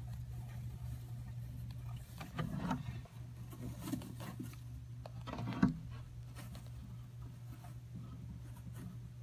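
Scattered scrapes, rustles and clicks of a savannah monitor shaking and biting a mouse on loose fibrous substrate, with two louder bursts about two and a half and five and a half seconds in, over a steady low hum.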